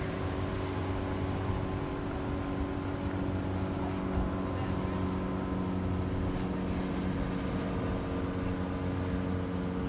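Boat engine running steadily: a low, even hum over a constant wash of noise, with one of its deeper tones growing stronger about a third of the way in.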